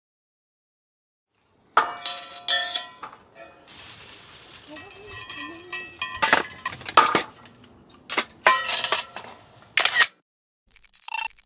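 Dishes and cookware clinking and knocking as they are handled and set down, in irregular clusters of sharp strikes that start about two seconds in.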